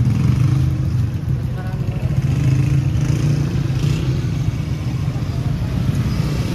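Street traffic: motor vehicle engines running close by in a steady rumble, with people's voices in the background.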